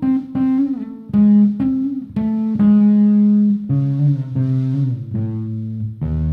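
Guitar music: a slow line of single plucked notes, some held about a second, with a lower bass part coming in about halfway through.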